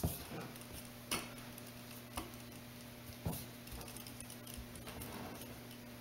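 Wooden rolling pin worked back and forth over bread dough on a wooden board, giving a sharp click about once a second. A steady low hum runs underneath.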